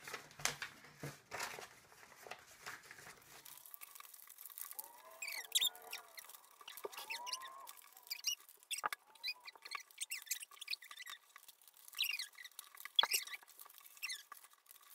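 Sheets of origami paper being folded and creased by hand on a tabletop: crinkling and rustling with small clicks and short squeaks.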